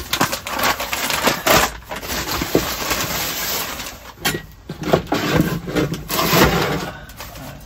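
Plastic sacks rustling and crinkling as they are grabbed and shifted about, in several bouts with a few short knocks.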